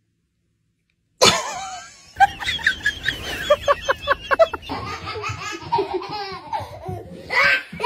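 Near silence, then a sudden loud start about a second in, followed by a person laughing hard in a quick run of high-pitched ha-ha pulses, with more laughter mixed with voices later on.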